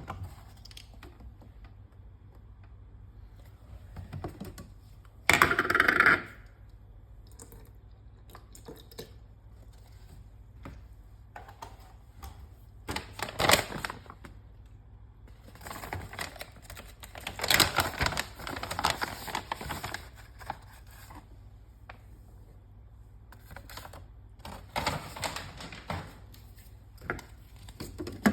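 Kitchen preparation sounds: scattered clicks and clinks with a few short bursts of clatter and rustling, as ingredients are handled and added for a berry smoothie.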